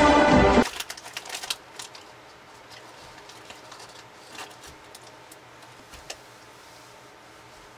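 Music stops abruptly just over half a second in, leaving quiet room tone with a faint hum and scattered soft clicks and rustles, from people shifting and handling things as they sit.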